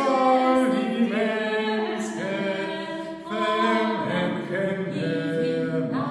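A man and a woman singing together without accompaniment, holding sustained notes of a slow sacred song.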